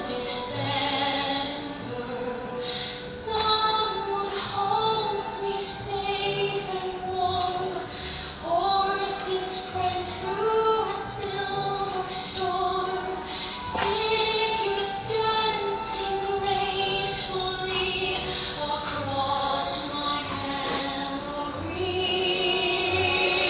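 Music: a song with a female singing voice carrying the melody over instrumental accompaniment.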